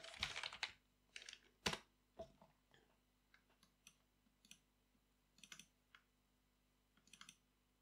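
Faint, scattered clicks of a computer mouse and keyboard, about a dozen short clicks at irregular intervals, a few in quick pairs, the sharpest about two seconds in.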